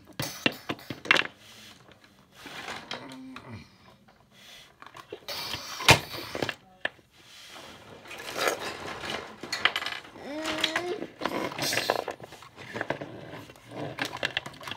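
Hard plastic toy dinosaurs knocking and clattering against each other and the floor as they are handled in a play fight: irregular sharp clicks and knocks, the loudest about six seconds in.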